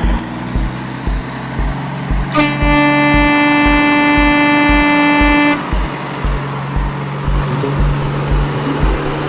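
A steady horn blast of about three seconds, one unwavering pitch, beginning a couple of seconds in, over a steady beat of low thumps about twice a second.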